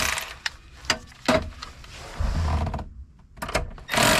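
A small motor-driven hand tool running in bursts about a second long, with a few light metallic clicks between them, as a nut is run down onto the inverter's cable terminal stud.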